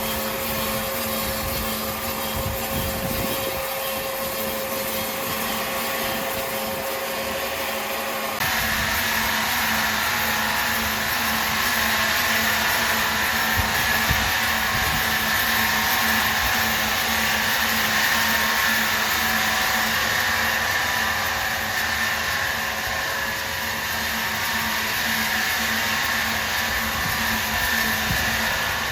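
Large sawing machine running steadily with a hum and a hiss. About eight seconds in the sound changes abruptly to a louder, higher whine.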